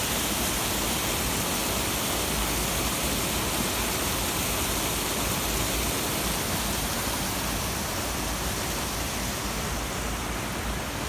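Water rushing steadily through the sluice of an old timber dam.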